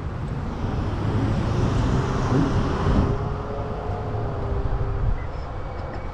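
Wind and road noise from riding a Zero 11x electric scooter: a steady rushing rumble that swells louder through the middle, with a faint steady whine over it for a few seconds.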